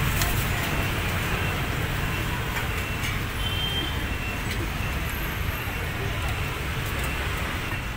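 Steady rumble of road traffic with faint distant voices.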